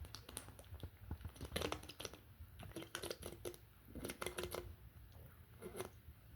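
Person drinking root beer from a plastic bottle: faint clicks and handling noise, with a few quiet swallows about a second apart.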